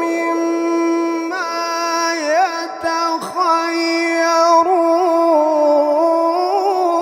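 A male voice chanting Qur'an recitation in the melodic tajwid style. It is one long phrase held on a steady pitch, with ornamented turns and wavers midway before it settles into another held note.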